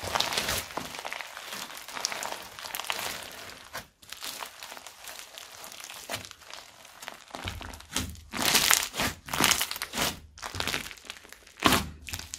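Crunchy slime smoothie of old slimes full of foam beads being squeezed and pressed by hand: dense crackling and crunching for the first few seconds, then a quieter stretch, then a run of louder, separate crunches and squishes in the second half.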